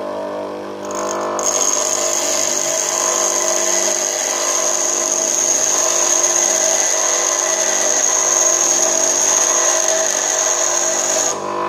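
Bench grinder motor running with a steady hum. About a second in, an HSS lathe tool bit is pressed against the grinding wheel, giving a steady high grinding hiss with a high whine. The contact stops just before the end. The top of the bit is being ground to form its rake angle.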